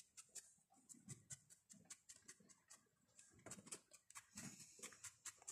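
Faint, rapid pricking of a felting needle stabbed repeatedly into wool, about five strokes a second, with a short pause around the middle.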